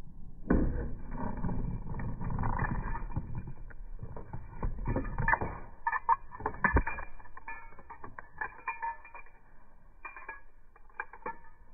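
A dog picking up an e-collar remote on a key ring from a plastic tray: irregular clicks, knocks and rattling of plastic and keys. The handling starts suddenly with a heavy bump about half a second in and grows sparser towards the end.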